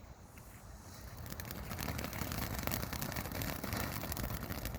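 Small ground firework hissing and crackling as it sprays, growing louder about a second in and then holding steady.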